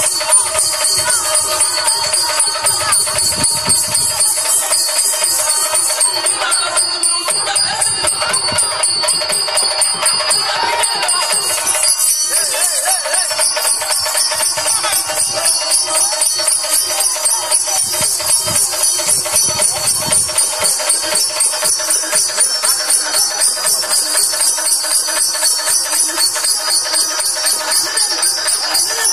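Live folk-drama music: a hand drum keeps a fast rhythm under the jingling of the dancers' ankle bells, over steady held tones from a harmonium.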